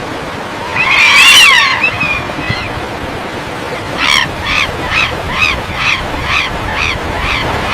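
Bird calls: a loud, harsh warbling call about a second in, then from about four seconds in a run of about nine evenly repeated call notes, roughly two or three a second. A steady background hiss runs under them.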